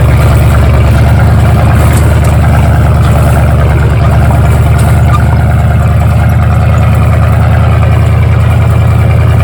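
1982 Ford F-150's 302 V8 running through a 3-to-4-inch step exhaust, a loud, steady drone at low rpm with no revving.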